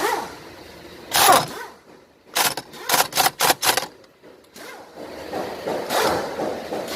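Car interior parts and hand tools being handled during steering wheel and airbag removal: a loud clunk about a second in, a quick run of about six sharp knocks, then a longer scraping, rustling noise.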